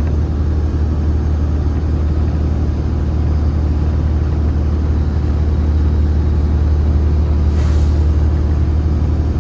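MAZ-203 city bus running, heard from inside the passenger cabin: a steady, loud low engine and road drone. A short hiss comes about three-quarters of the way through.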